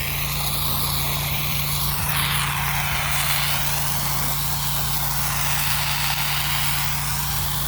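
A pressure-washing rig's engine and pump running with a steady hum, under the hiss of a low-pressure rinse spray that swells and fades as it moves.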